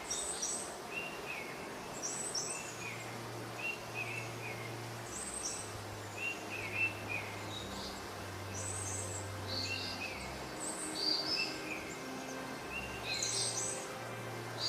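Small birds chirping in short repeated phrases, a few a second apart, over low sustained tones that change every second or two.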